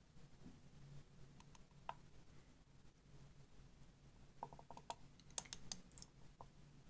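Quiet room tone with faint handling noise: a few light scattered clicks early on, then a short run of quick light clicks and ticks in the second half.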